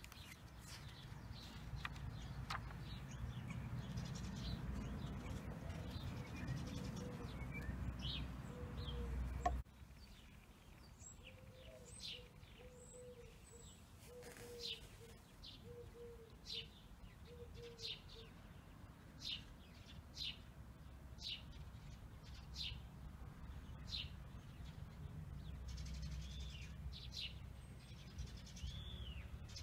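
Small birds chirping again and again in short, sharp, high calls. A low rumble under them for the first third cuts off abruptly.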